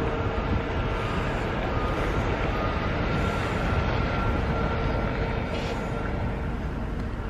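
Mountain bike being ridden along a tarmac path: steady rumble of tyres and riding noise picked up by a camera carried in a pouch on the bike, with a faint steady hum over it.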